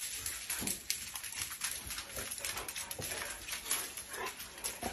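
Several husky-type dogs walking on a laminate floor, their claws clicking irregularly, with a few faint whimpers.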